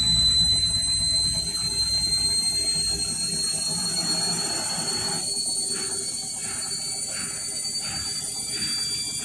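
Indesit washing machine on an unbalanced final spin. The motor whine rises slowly in pitch as the drum speeds up, over a heavy low rumble that eases about three seconds in. Then a regular swishing pulse comes about twice a second. Spinning unbalanced like this hammers the drum bearings.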